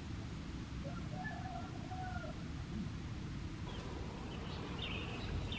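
Birds calling: a few short whistled notes about one to two seconds in, then higher chirps near the end, over a steady low background rumble.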